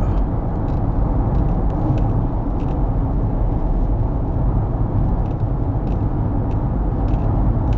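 Steady low rumble of a running motor vehicle, with a few faint ticks.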